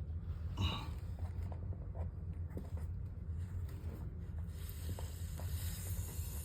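Low steady hum with a few faint knocks; about two-thirds of the way in, a hiss of water starts at a water heater's drain valve. The valve is faulty and leaking.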